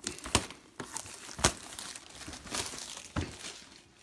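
Packaging on a sealed card box crinkling and tearing as it is pulled open, with a few sharp snaps.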